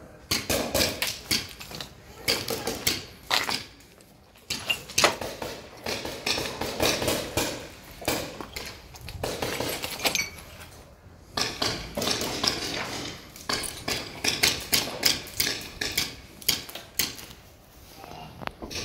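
Footsteps crunching over rubble, broken brick and shards of roofing sheet: dense runs of sharp crunches and clinks, pausing briefly a few times.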